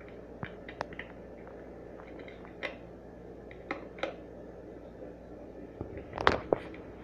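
Plastic DVD cases being handled: scattered light clicks and taps, with a louder cluster of clacks about six seconds in, over a faint steady hum.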